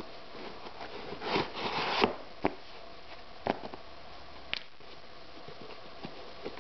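Handling noise from a sneaker and its insole: a rustling scrape as the insole is pulled out of the shoe about a second in, followed by three sharp clicks and taps.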